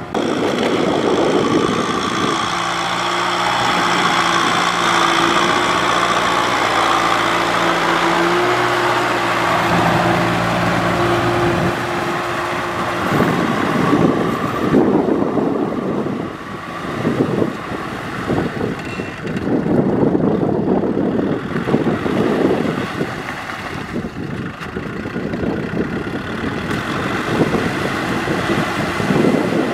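Kubota M6040SU tractor's diesel engine running under load as it pulls a rotary cultivator through wet paddy mud. The note is steady at first, then turns rougher and more uneven about 14 seconds in.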